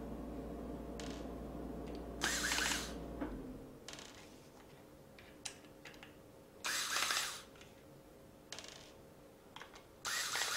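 Screwdriver undoing the small screws that hold a laptop hard drive in its metal caddy: three short scraping bursts a few seconds apart, with faint clicks between. A low hum stops about three seconds in.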